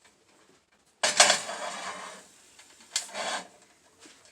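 Cookware being handled on the stove: a sudden scraping clatter about a second in that fades over about a second, then a shorter scrape near three seconds.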